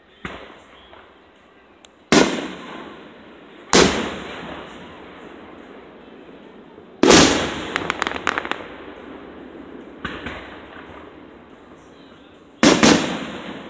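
Aerial firework shells bursting overhead: four loud bangs, each trailing off in a rumbling echo, with two fainter reports between them. The third bang is followed by about a second of rapid crackling.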